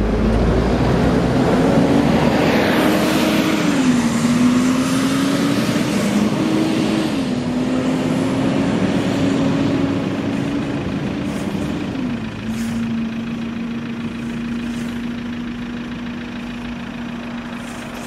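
Volvo B7TL double-decker bus pulling away and driving off, its engine note rising and dropping back with gear changes about four, seven and twelve seconds in, then fading as it gets farther away. Its cooling fan whines throughout, the 'hoover' sound these buses are known for.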